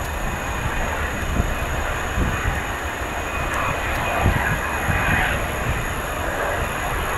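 Boeing 747-245F's four jet engines at takeoff power during the takeoff roll: a steady, loud rumble with irregular low gusts.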